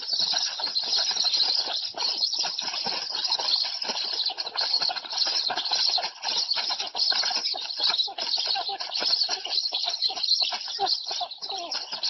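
Black stork nestlings begging for food as an adult feeds them at the nest: a dense, unbroken chorus of rapid calls, with wings flapping among them.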